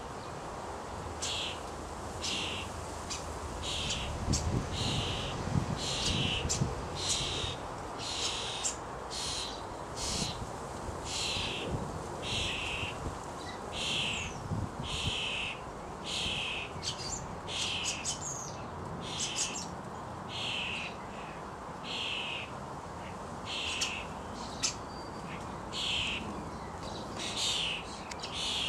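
Fledgling common starling begging: short, harsh calls repeated about once a second.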